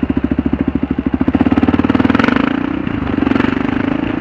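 Kawasaki KLR 650's single-cylinder four-stroke engine running with an even pulse. About a second and a half in it picks up speed and gets louder, then eases back to a steadier run.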